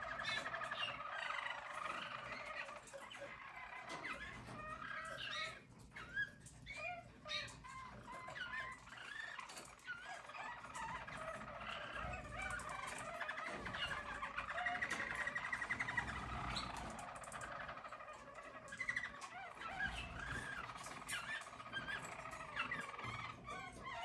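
Harz Roller canaries singing: a continuous rolling song of rapid trills, thinning out briefly about five seconds in.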